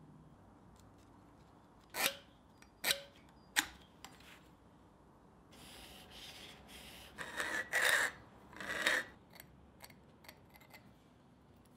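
Three light metal clinks, then a felt marker rubbing along a steel bar and a scribe scratching a few short strokes into the steel as a line is marked out.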